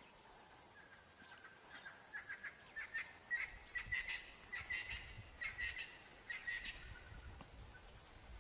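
African wild dogs twittering in a greeting: rapid, high-pitched, bird-like chirps in quick clusters, building from about a second in and busiest in the middle.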